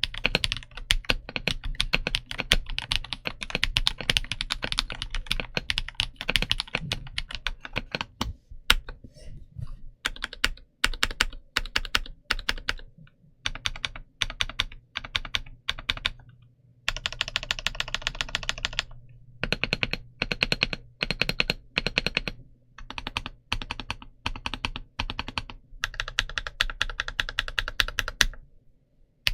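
Typing on a BOYI C75Pro mechanical keyboard: a fast run of keystrokes, then slower single key presses with pauses, then more quick bursts of typing.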